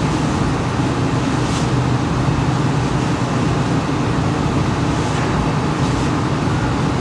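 Steady outdoor background drone: a constant low mechanical hum under an even rushing noise, without change in level.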